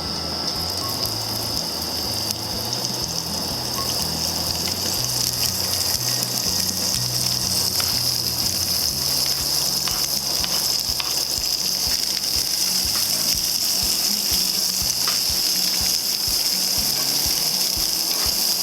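Onions, green pepper and jalapeño sizzling in olive oil in a cast iron skillet over a propane camp-stove burner. The sizzle is a steady hiss that grows a little louder about four seconds in, with small crackles.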